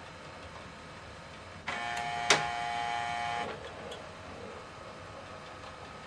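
HP OfficeJet Pro 9120e scanner and document feeder working through a double-sided scan. A faint steady whir becomes a louder motor whine a little under two seconds in, with a sharp click, and drops back to the faint whir after about two seconds.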